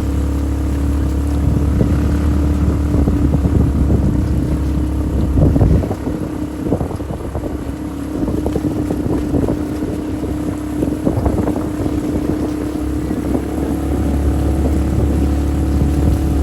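Off-road vehicle engine running steadily during a ride, with rattles and wind on the microphone; the engine eases off about six seconds in and picks up again near the end.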